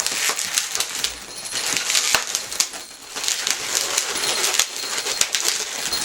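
Latex modelling balloons rubbing and squeaking against each other and against the hands as they are twisted and locked together, a scratchy stop-and-start rustle with small clicks, easing briefly about a second in and again near the middle.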